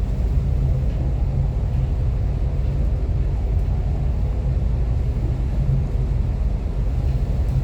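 Steady low rumble on a ship's bridge while underway in a storm, with a faint hum running under it.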